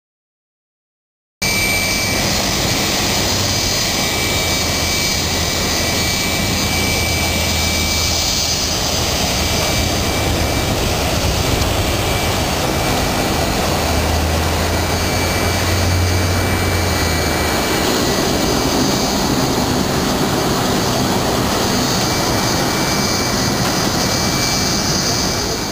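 Steady jet aircraft engine noise on an airport apron: an even rush with a high, steady whistle and a low hum. It starts abruptly about a second and a half in.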